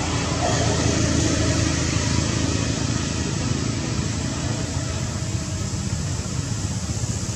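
Steady low rumbling background noise, swelling slightly about a second in and easing off later.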